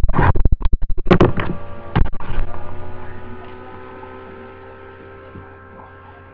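A long, loud burp with a rapid pulsing, lasting about a second and a half, then a shorter one about two seconds in. A steady electrical hum runs underneath.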